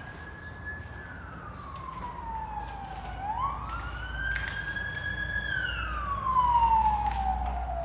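Siren wailing: a slow rise and fall in pitch, falling about a second in, rising again around three seconds, holding, then falling once more, growing louder near the end.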